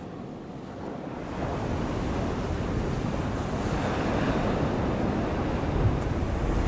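Choppy sea water and wind, with wind buffeting the microphone; the water noise swells about a second in and the low wind rumble grows near the end.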